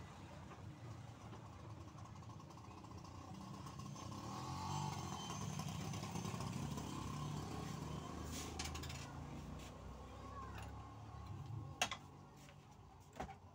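A motor vehicle's engine going past, growing louder to a peak midway and then fading away, with a few sharp knocks near the end.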